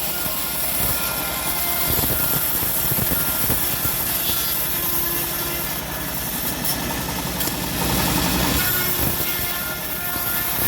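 Homemade engine-driven bandsaw mill running steadily with a pulsing engine note that swells about two seconds in and again near the end.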